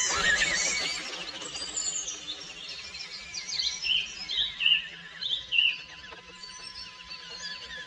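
Birds calling and chirping, with a run of four loud, down-slurred whistled notes in the middle.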